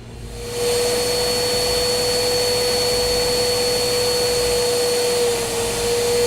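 An electric motor-driven machine running at high speed: a steady rushing noise with a hum and a high whine, building up over the first second and then holding steady.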